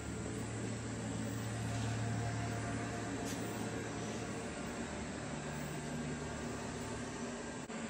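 Steady low machine hum over an even hiss; the hum shifts slightly higher in pitch about five seconds in.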